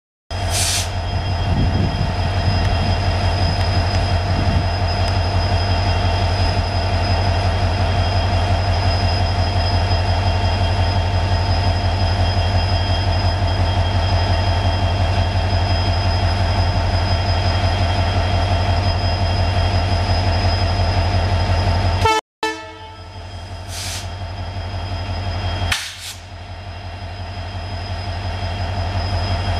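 EMD GT46MAC (WDG-4) diesel locomotive's 16-cylinder two-stroke 710 engine humming at standstill: a steady low drone with a steady whine above it. About 22 seconds in the sound cuts off abruptly, returns quieter and builds again, with brief sharp noises near the start and twice afterwards.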